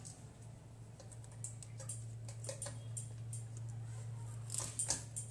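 Light, irregular clicking and ticking over a steady low hum from a frying pan of oil on a stove that has just been switched on to heat, with a brief cluster of louder clicks near the end.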